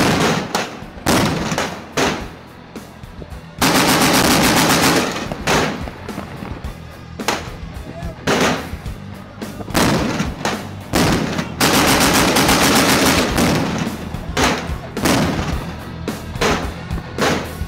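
Gunfire from automatic weapons: short bursts and single shots, with two long, rapid automatic bursts about four seconds in and again about twelve seconds in.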